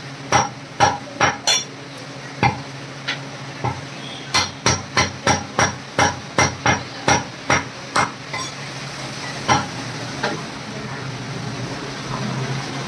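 Meat cleaver chopping mutton on a wooden chopping block: sharp chops, a quick run of about three a second from about four to eight seconds in, with single chops before and after it. A steady low hum runs underneath.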